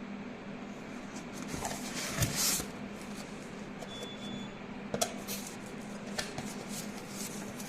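A product box being opened and its packaging handled: a brief rustling slide about two seconds in, with scattered light clicks and knocks of cardboard and parts over a steady low hum.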